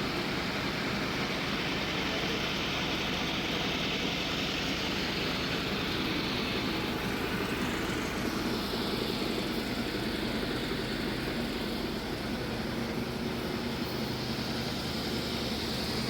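A machine running steadily, with an even, dense mechanical drone.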